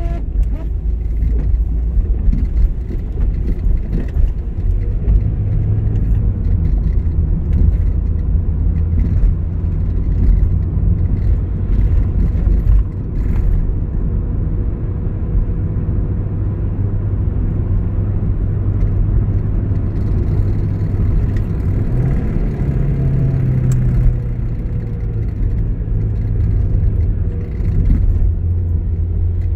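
Steady low rumble of a car's engine and tyres on a wet road, heard inside the moving car's cabin. The engine note rises briefly and then settles about 22 seconds in.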